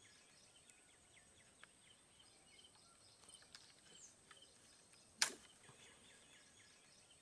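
A single sharp knock about five seconds in: a long bamboo pole striking the branches of a Manila tamarind tree to shake the pods down. Around it, only faint light ticks and rustles.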